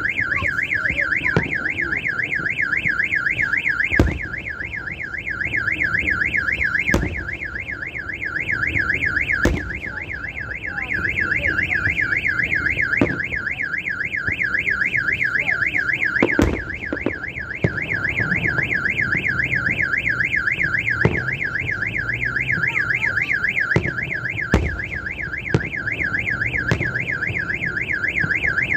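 A car alarm warbles without a break, a fast up-and-down wail about four times a second. Firework shells burst over it as sharp bangs every few seconds.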